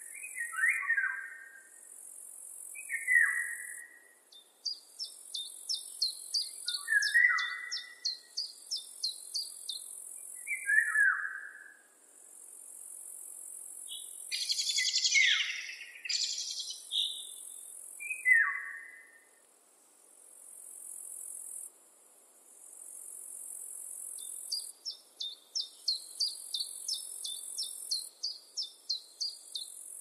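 Wild songbirds singing, with short down-slurred whistled calls recurring every few seconds, a rapid high ticking trill twice, and a louder, harsher call about halfway through. Beneath them runs the high-pitched stridulation of insects, pulsing on and off every second or two.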